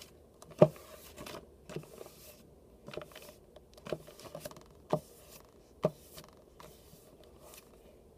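A sheet of paper being folded and creased into a paper airplane on a hard tabletop: paper rustling, with short knocks about once a second as fingers press the folds flat against the table, the loudest about half a second in.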